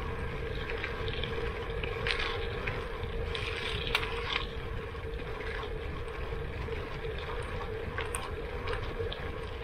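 Gravel bike tyres rolling over a loose gravel road, a steady rumble with a few scattered clicks of small stones.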